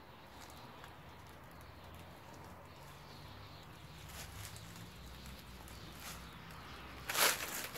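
Faint steady low hum of traffic from a nearby main road. About seven seconds in comes a short, loud scuffing noise.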